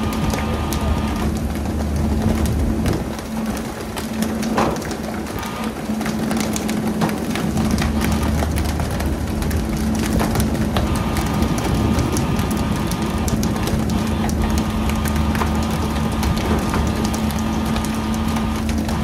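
Steady drone of a fishing boat's engine under a hiss of water spray, with frequent sharp slaps and knocks as skipjack tuna are swung aboard and land on the deck.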